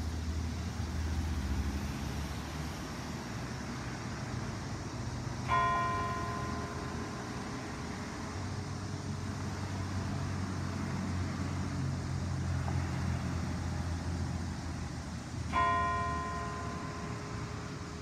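A single bell tolled twice, about ten seconds apart, each strike ringing out with several tones and fading slowly over a steady low rumble: a slow mourning knell.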